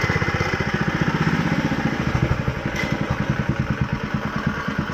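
Go-kart's small engine running with a fast, even firing pulse, a little louder in the first couple of seconds.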